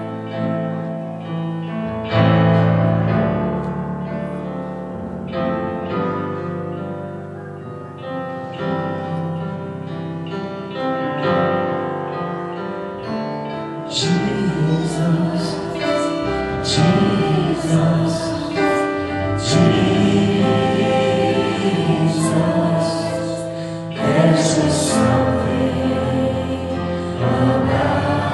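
Church praise band playing a slow worship song live: held keyboard chords at first, then about halfway in, voices come in singing, with sharp percussion hits, and the music grows louder.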